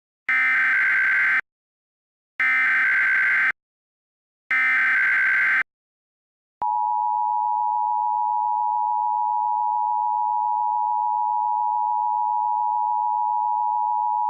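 Emergency Alert System SAME header: three bursts of data tones, each about a second long with a second's gap between them. Then the EAS attention signal, two steady tones sounded together and held for about eight seconds, opening a Required Monthly Test.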